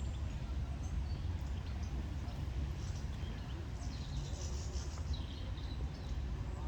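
Outdoor bird ambience: faint, high, short bird chirps, mostly in the second half, over a steady low rumble; no clear duck quacks.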